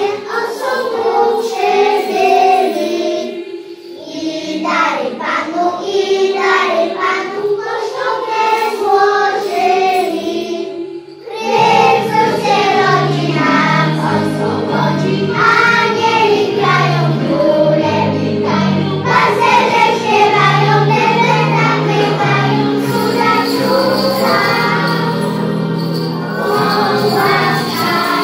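A group of young children singing a song together in unison, with instrumental accompaniment. About eleven seconds in, a fuller backing with bass notes comes in under the singing.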